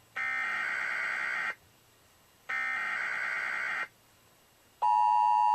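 Emergency Alert System tones: two buzzy data bursts of about a second and a half each, the SAME header, then the steady two-tone attention signal starts near the end and holds. It heralds a broadcast severe thunderstorm warning.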